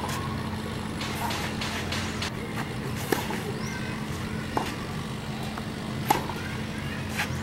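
Tennis rally on a clay court: sharp pops of racket strings striking the ball and the ball bouncing, one about every second and a half, the loudest about six seconds in. A steady low hum runs underneath.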